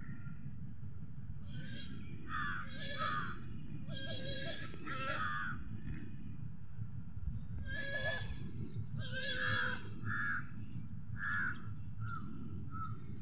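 Crows cawing repeatedly in harsh calls that come in clusters, with shorter calls near the end, over a steady low rumble.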